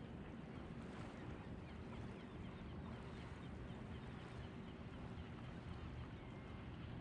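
Steady, low rumble of wind on the microphone over faint water sounds from wading in shallow water.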